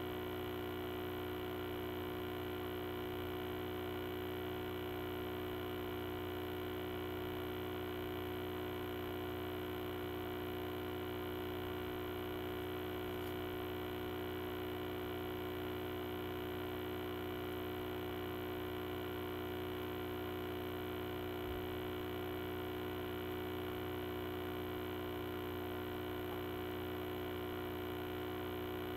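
Steady electrical hum made of several fixed tones at an unchanging level, with no other sound standing out.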